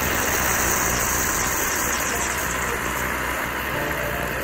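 Steady hiss of a camp stove burner under an aluminium stovetop moka pot, with the coffee brewing up into the top chamber.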